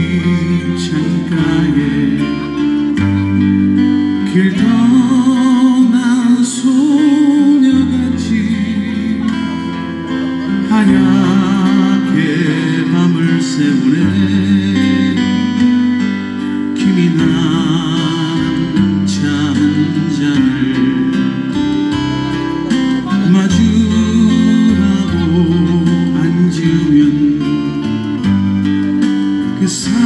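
Live acoustic guitar strumming and a man singing a Korean ballad into a microphone, over a steady bass line that changes note every couple of seconds.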